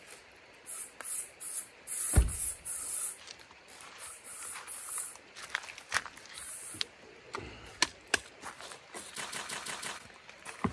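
Aerosol bug repellent sprayed in a string of short hissing squirts over the first five seconds or so, with one more at about six and a half seconds and a thump at about two seconds. Scattered clicks follow, then a quick run of ticks near the end.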